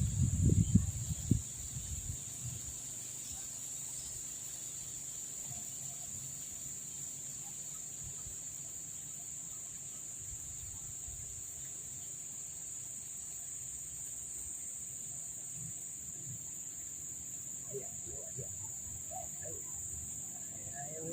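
A steady, high-pitched insect chorus drones without a break. Loud low thumps of handling noise come in the first second or so.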